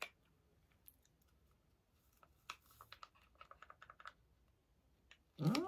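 Faint scattered clicks and ticks of a paper stick sachet of enzyme powder being handled and tipped into the mouth, busiest in the middle. A short voiced hum with a rising then falling pitch starts near the end.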